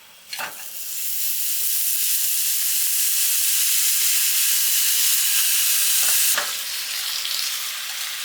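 Thinly sliced pork belly frying in a hot pan with a loud, steady sizzle. It starts with a click about half a second in and becomes a little quieter after another click about six seconds in.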